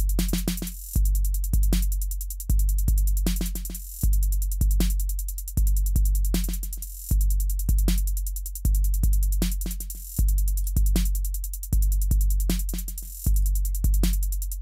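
Trap drum beat from a Maschine drum kit playing back in a loop: long, deep 808-style bass kicks about every second and a half, with sharper drum hits and rapid ticking hi-hats over them.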